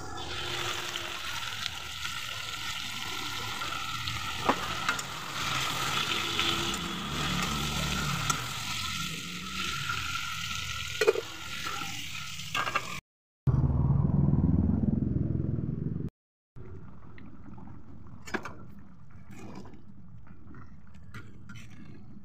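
Chicken pieces frying and sizzling in oil in a metal kadai, stirred with a metal spatula that clicks and scrapes against the pan now and then. After a cut there are a few seconds of louder low rumble. Then comes a quieter stretch as the curry simmers, with occasional clicks.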